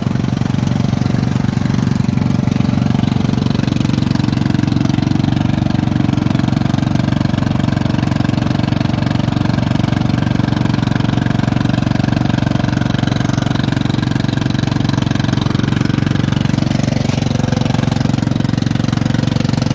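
Engine of an old riding garden tractor running steadily as the tractor drives along.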